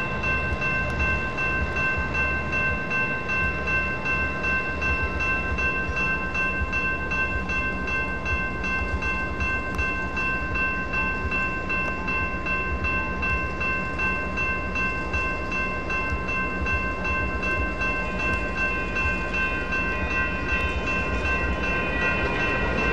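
Railroad grade-crossing warning bells, more than one, ringing together in a steady, unbroken repeating ring: the crossing's warning that a light rail train is approaching.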